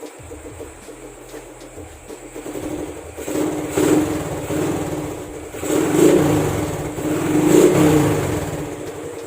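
Honda RS125 motorcycle engine with an Apido aftermarket exhaust pipe idling during warm-up, then blipped three times, each rev sliding back down toward idle.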